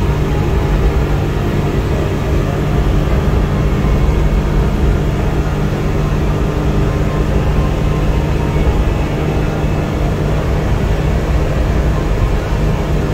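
Suzuki Every DA64V mini van's 660 cc three-cylinder engine running on a test drive, with a steady, even drone of engine and road noise and a low hum that holds throughout.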